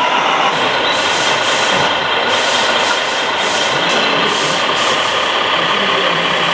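Radio-controlled scale construction vehicles (tipper trucks and an excavator) running: a steady mechanical engine-like hum, with a rhythmic high hissing pulse about two or three times a second through the middle.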